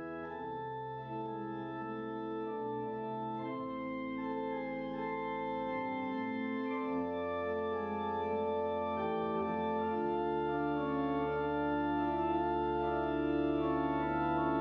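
Organ playing slow, sustained chords over a bass line that changes every few seconds, gradually growing louder.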